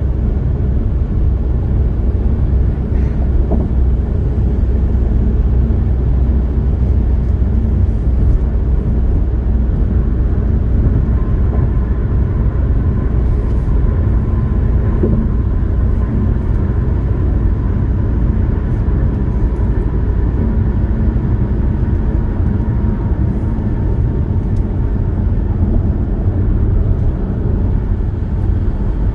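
Steady rumble of a car cruising on a highway, tyre and engine noise strongest at the low end. A faint steady whine comes in for about ten seconds in the middle.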